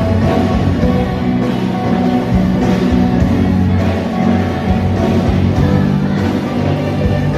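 Band music with guitar over a steady drum beat.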